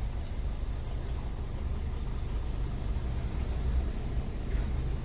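2016 Honda Civic's engine idling: a steady low rumble.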